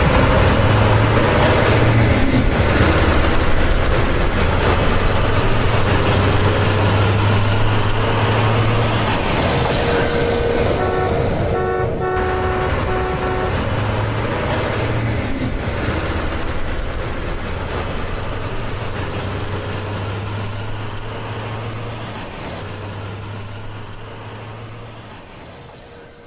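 Truck engine running steadily, a recorded sound laid over the footage rather than anything the plastic toy truck makes. A horn sounds briefly about twelve seconds in, and the engine fades out near the end.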